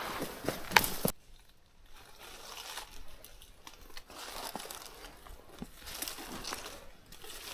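Footsteps crunching through dry leaves and brush, loud with sharp snaps for about a second, then dropping off suddenly to fainter rustling and twig snaps.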